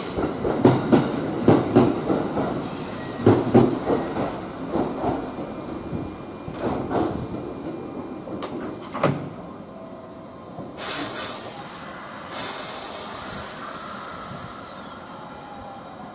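Railway noise at a platform beside a standing Kintetsu 22000 series ACE limited express: irregular clanks and knocks for the first nine seconds, then a burst of compressed-air hiss about eleven seconds in, followed by faint falling high-pitched whines.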